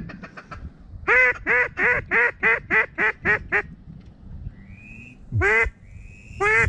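Mallard-type duck quacking: a fast run of about nine loud, slightly descending quacks starting about a second in, then two longer single quacks near the end, with a short whistled note before each.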